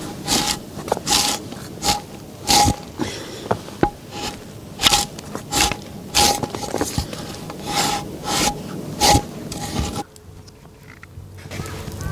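A hand tool worked across wood in repeated scraping strokes, about one and a half a second, each with a brief light ring; the strokes stop about ten seconds in.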